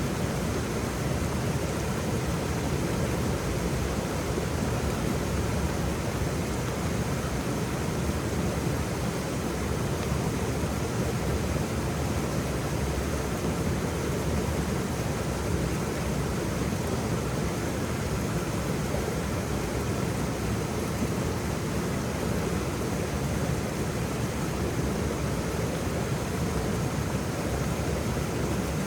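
Waterfall: a steady, even rush of falling water, heaviest in the low and middle range.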